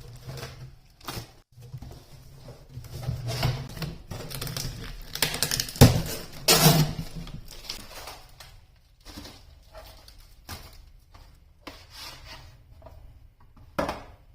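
Irregular clicks, taps and knocks of hard objects being handled and set down, with a few louder knocks about halfway through and one near the end.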